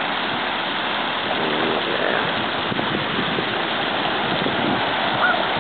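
Lake spray fountain splashing: a steady hiss of falling water. A few faint brief calls rise above it about two seconds in and near the end.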